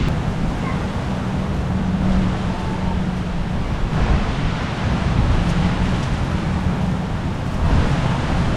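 Wind rushing over the microphone, with a steady low hum underneath.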